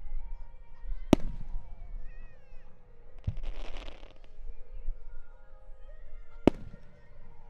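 Aerial fireworks shells bursting: a sharp bang about a second in and another near the end, with a second-long crackling burst in between, over the music of a pyromusical show.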